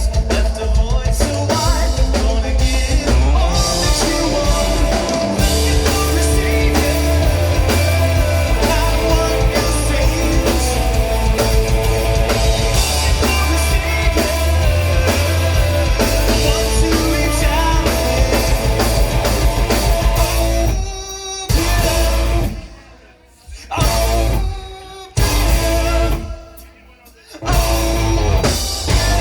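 Live rock band playing loudly with drum kit, bass and guitar. Near the end the band stops short twice in quick stop-start breaks, coming back in after each gap.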